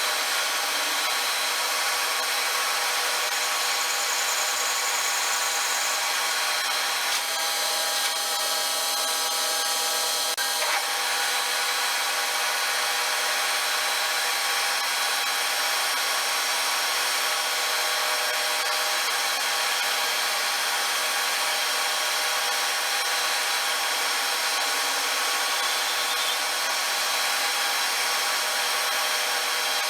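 A machine tool running steadily, cutting metal with a continuous even grind, at an unchanging level.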